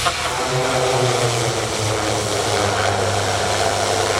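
PT6 turboprop engine and propeller of Draco, the turbine-converted PZL Wilga, running at power during its STOL run: a loud, steady propeller hum over the rush of the turbine.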